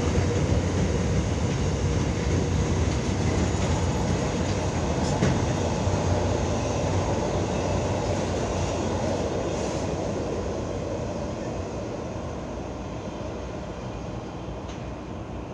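Container freight train's wagons rolling past on the rails: a steady wheel noise that fades over the second half as the end of the train goes by.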